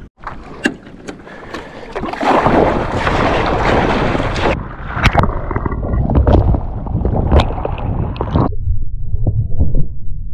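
Sit-on-top kayak being paddled through choppy sea: paddle strokes splashing, water rushing and slapping along the hull, and sharp knocks and splashes throughout. A loud rush of wind or spray hits the microphone for a couple of seconds early on.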